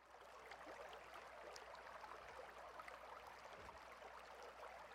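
Near silence: a faint, even rush of stream water with scattered tiny ticks and a steady low hum underneath.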